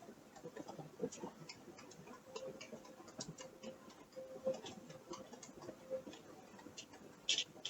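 Faint, irregular small clicks and creaks at uneven intervals, a louder pair near the end, over a faint steady hum.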